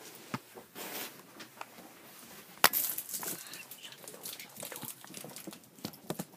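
Rustling and irregular clicks of a phone camera being handled, with one sharp click about two and a half seconds in.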